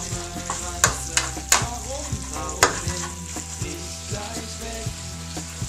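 Minced beef frying in a pan, sizzling steadily, while a spatula stirs it, scraping and clicking against the pan now and then.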